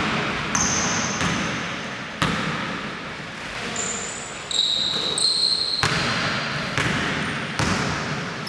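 Basketball bouncing on a wooden gym floor as it is dribbled up the court, each bounce a sharp knock with a ringing tail, with short high squeaks of sneakers on the floor in between.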